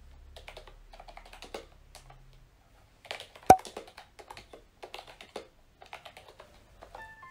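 Typing on a Mofii Candy wireless keyboard with round typewriter-style keycaps: quick runs of key clicks with a short pause about two and a half seconds in, and one sharp, much louder click about three and a half seconds in.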